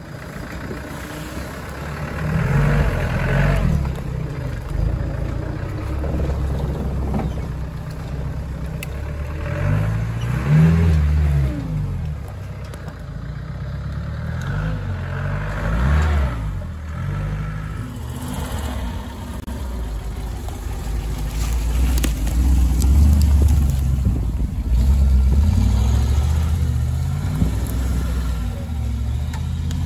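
Land Rover off-roaders, a Series Land Rover and then a Defender 90, driving slowly over rough ground: engines pulling hard, the note rising and falling over and over as the throttle is worked, with several louder surges of revving.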